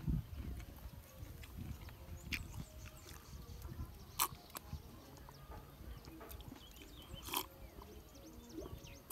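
Swallowing and slurping while drinking coconut water straight from a freshly opened young green coconut, with two sharper, louder moments about four and seven seconds in.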